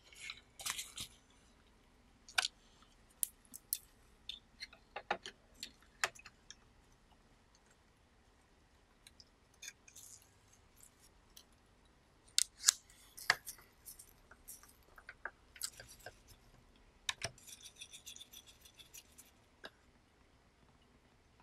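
Small metal tools clicking, tapping and scraping against the metal chassis and circuit board of a Panasonic RQ-2730 cassette recorder under repair: scattered sharp clicks, with a short run of scratchy scraping near the end.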